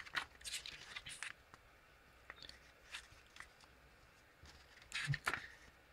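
Pages of a paper CD booklet being turned and handled, with short papery rustles in clusters: in the first second or so, around three seconds in, and again near the end.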